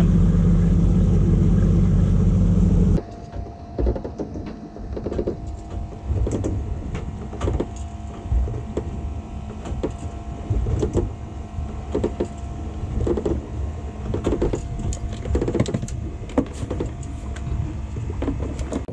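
Motorboat engine running steadily under way, cutting off abruptly about three seconds in. Then irregular knocks and clicks from a small grouper being handled and unhooked on deck, over a faint steady hum.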